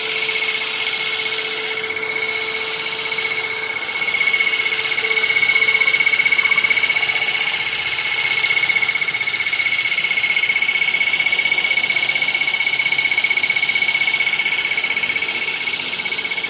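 Liquid-asphalt injection machine running steadily while it pumps asphalt into a roof crack under pressure. It gives a constant high-pitched motor tone over a hiss, with a lower tone that fades out about five seconds in.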